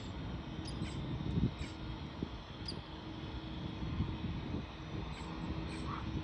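Steady outdoor rumble and hiss with a faint steady hum, and a few short high chirps scattered through it.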